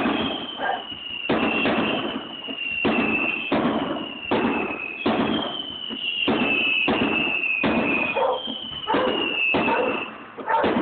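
Aerial fireworks shells bursting in a rapid series, roughly one bang a second, many followed by a high tone sliding slightly downward.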